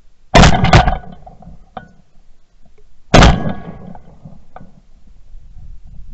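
Two blasts from a Weatherby Element 12-gauge semi-automatic shotgun firing at doves, about three seconds apart, each a sharp crack that dies away over a fraction of a second. The first report is doubled and runs on longer. Both are heard very close and clipped, from a camera on the gun barrel.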